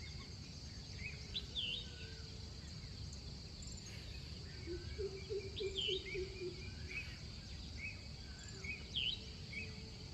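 Dawn chorus of several birds: sweeping calls and short chirps scattered throughout, with a quick run of low notes about five seconds in, over a steady high insect drone and a low rumble.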